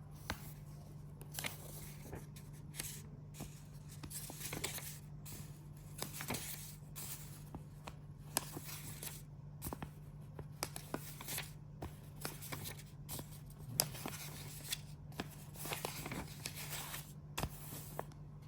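Packaging being handled: repeated short bursts of rustling and crinkling with sharp clicks and light knocks, over a steady low hum.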